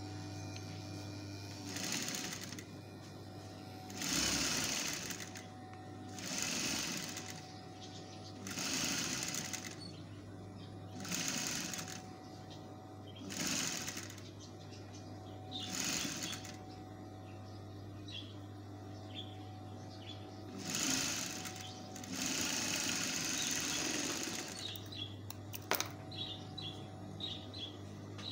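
Electric sewing machine stitching fabric in about ten short runs of a second or two each, with a steady motor hum between them. A sharp click and light ticking come near the end.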